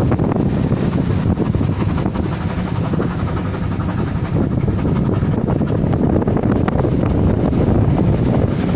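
Steady loud rumble aboard a squid-fishing boat under way in a heavy storm, the boat's running and the sea blending with wind on the microphone.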